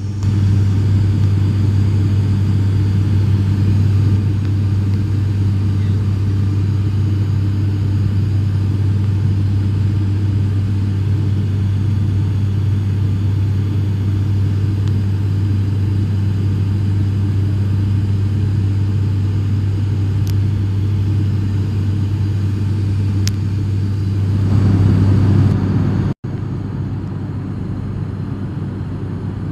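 Turboprop airliner heard from inside the cabin: a loud, steady propeller and engine drone with a strong low hum. It cuts out for an instant about 26 seconds in and carries on a little quieter.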